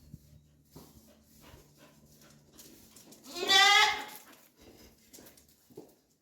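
A goat bleating once, loudly, for about a second, a little past the three-second mark, its pitch wavering through the call. Faint knocks and shuffling are heard around it.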